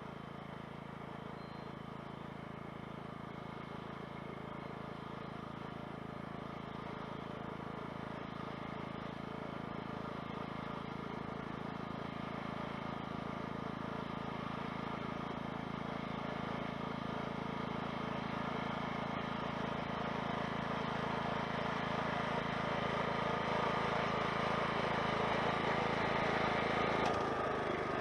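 Engine of a farm machine running steadily, its hum growing gradually louder, with an abrupt change in the sound shortly before the end.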